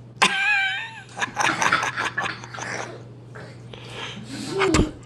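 A high, wavering squeal, then a run of short breathy huffs and snorts, and a lower falling cry near the end: playful fake sneezing.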